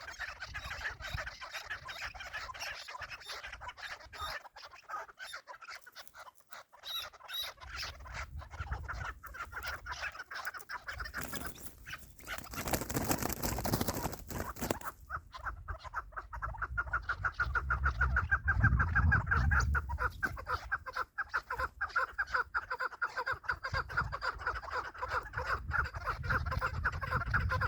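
Chukar partridges calling with quick repeated chuk notes that build into a fast chatter in the second half. A burst of hissing noise comes about halfway through, and low rumbles follow.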